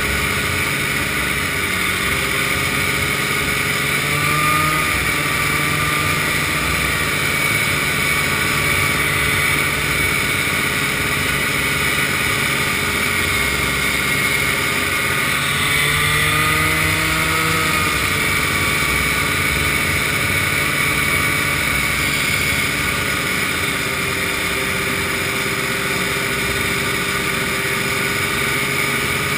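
Vintage snowmobile's two-stroke engine running steadily at cruising speed, its pitch rising and dipping slightly twice, over a steady rushing noise.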